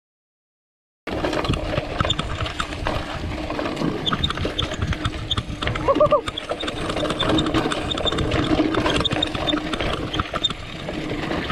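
Marin San Quentin 1 mountain bike going down a rough dirt trail, its tyres, frame and drivetrain rattling and clattering over the bumps. It opens with about a second of silence.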